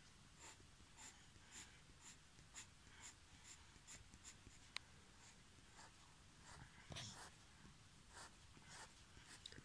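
Pencil tip scratching on paper in short, regular hatching strokes, about two a second, faint; one sharper tick about five seconds in.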